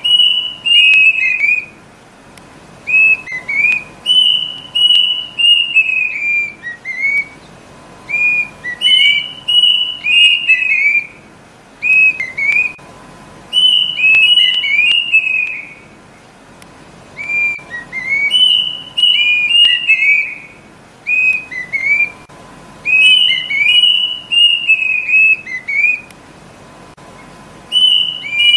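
Kedasih (Cacomantis cuckoo) calling: repeated phrases of high whistled notes that fall in pitch, coming every few seconds with short pauses between.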